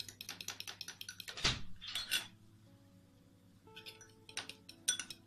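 A metal utensil clinking rapidly against a bowl, as in whisking a mixture, with a few louder strikes about a second and a half in, then sparser clinks near the end.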